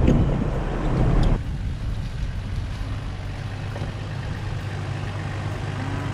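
A loud rushing noise, then from about a second and a half in the steady low running of a Toyota Land Cruiser HZJ75 troop carrier's 1HZ diesel six as the vehicle rolls slowly along.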